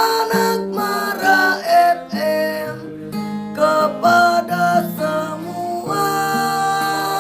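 Music led by a strummed acoustic guitar, with a held melody line over it.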